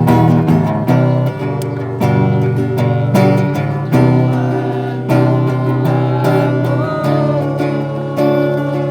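Music: strummed acoustic guitar with a regular beat about once a second, and a singing voice coming in about six seconds in.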